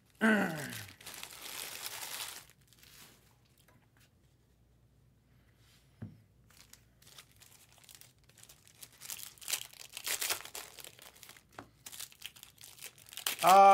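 Trading card pack wrapper crinkling as it is torn open, then, after a pause, baseball cards rustling and clicking as they are slid and flipped one behind another in the hands.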